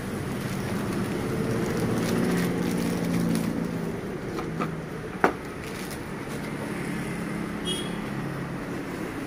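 Plastic bag rustling as it is pulled off a small boxed metal electronics unit, with light handling clicks and one sharp knock about five seconds in, over a steady low background drone.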